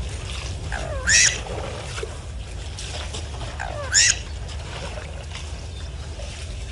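A bird gives two short, loud, harsh calls, about a second in and again about four seconds in, over a steady low rumble.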